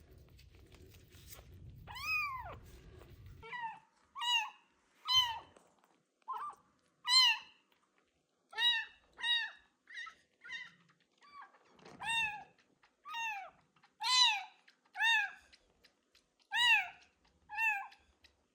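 A young kitten meowing loudly over and over, about once a second, each meow rising then falling in pitch. A low steady noise underneath stops about three seconds in.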